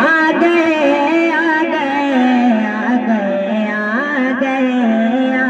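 A voice singing a slow, wordless melodic opening to a naat, with long held notes that slide and curl between pitches, the melody falling lower about halfway through.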